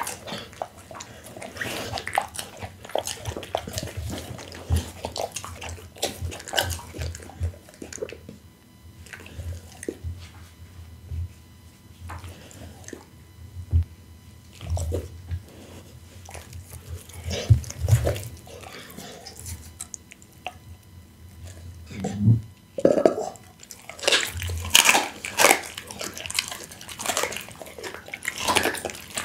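Pit bull licking and chewing raw meat scraps close to a microphone, with wet smacking and licking sounds and quieter spells in between. Near the end come denser, louder bites as it mouths a piece of raw meat held out by hand.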